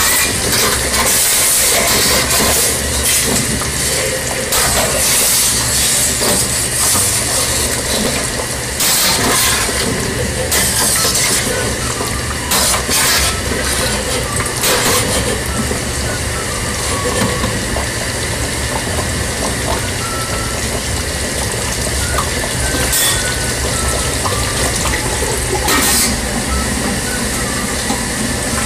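Steady loud hiss and rumble of stovetop cooking under a pan of simmering sauce, with a few sharp clinks of metal against the pan along the way.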